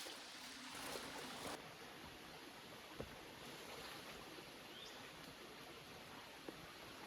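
Quiet rainforest ambience: an even background hiss, with a high hiss that drops away about a second and a half in and a couple of faint clicks.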